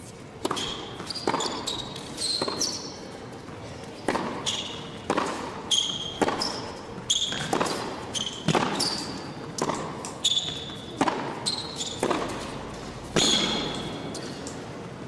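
Tennis rally on an indoor hard court. Rackets strike the ball back and forth about once a second, and short high shoe squeaks come between the shots.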